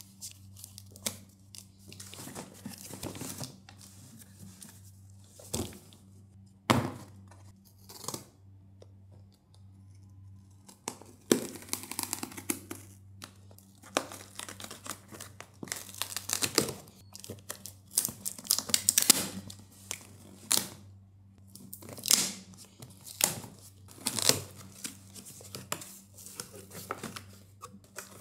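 Packing tape on a cardboard shipping box being slit and torn in a series of separate rips and scrapes, with a few sharp knocks. Near the end the cardboard flaps are opened and plastic air-pillow packing crinkles.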